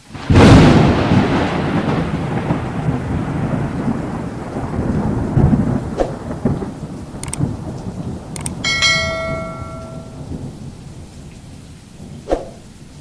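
A loud thunderclap breaks just after the start and fades into a long rumble of thunder with steady rain. About nine seconds in comes a short ringing tone lasting about a second.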